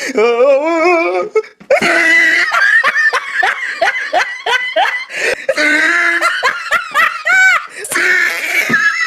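Hard human laughter in long fits broken by short breaks, with pulsing, wavering pitch and high-pitched giggles.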